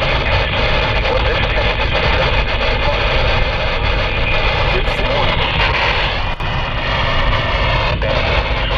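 Weather radio receiver putting out a loud, steady hiss of static, with a faint broken voice buried under it.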